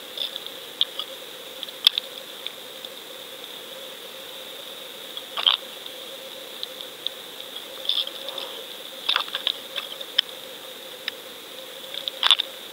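Underwater sound picked up by a submerged fishing camera on its rig: a steady high whine and a fainter low hum, broken by scattered sharp clicks and short crackles, the loudest cluster near the end.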